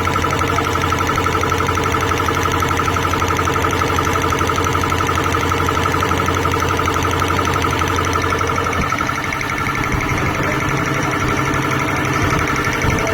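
2 hp double-piston air compressor running, a steady pulsing whine over a low hum. The low hum shifts about nine seconds in.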